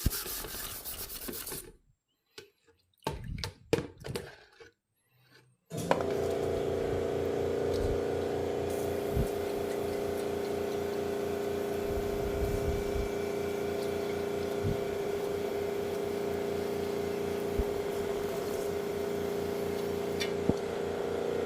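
Brief rubbing and scrubbing. Then, about six seconds in, an electric fan motor, likely the stove's range hood fan, switches on and runs with a steady, even hum.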